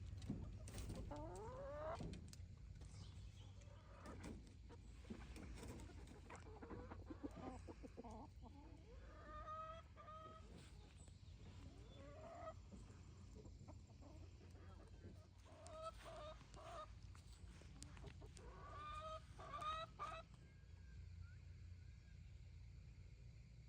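Chickens clucking: several clusters of short pitched calls over a low, steady background rumble.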